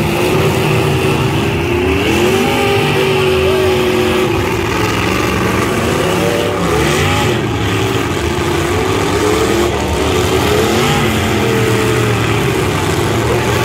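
Engines of several demolition derby trucks running hard together, their pitch rising and falling again and again as the drivers rev them while pushing in the mud.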